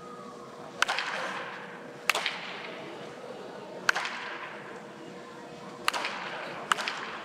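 Baseball bat hitting balls: five sharp cracks at uneven intervals, each trailed by a short echo in a large indoor hall.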